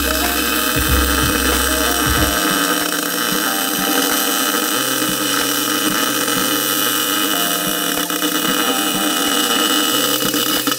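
Background music with a bass line that changes note every couple of seconds, over a loud, steady hiss. A deep bass note drops out about two seconds in.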